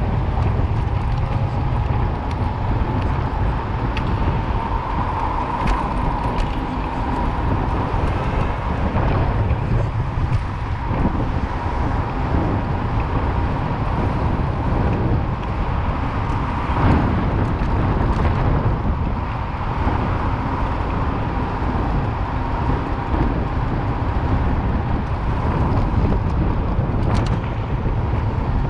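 City street noise heard from a moving bicycle: a steady low rumble with road traffic going by. A faint, steady high whine runs underneath.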